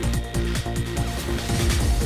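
Electronic music with a steady beat and deep bass.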